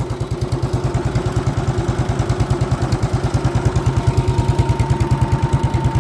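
Vintage tractor engine running steadily at idle, each firing stroke heard as an even, rapid beat. A faint, steady high tone joins about four seconds in.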